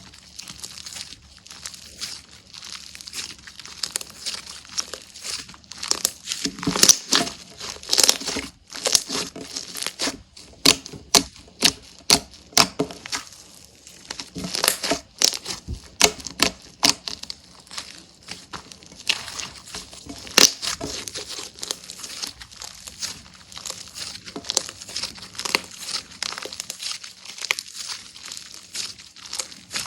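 Hands squishing, stretching and poking slime: a steady wet crackle of sticky clicks and pops, with louder pops coming thick and fast about six to seventeen seconds in.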